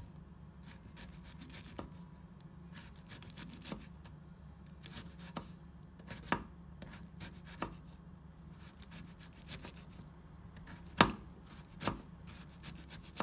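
Chef's knife slicing a red cabbage into thin shreds on a wooden cutting board: a quick run of light cuts and taps of the blade on the board, with a few louder knocks, the loudest near the end.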